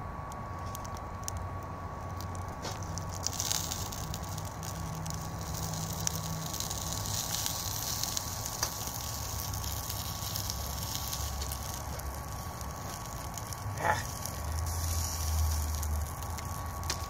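BioLite wood-burning camp stove with grill top: its fan running with a steady whine while the fire crackles and the food sizzles, with scattered light clicks and one sharper click late on as tongs work the food on the grill.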